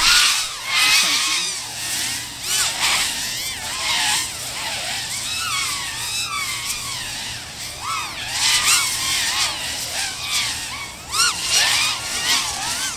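Several FPV racing quadcopters flying a race, their propellers and brushless motors whining and swooping up and down in pitch as the pilots change throttle, with the whines overlapping throughout.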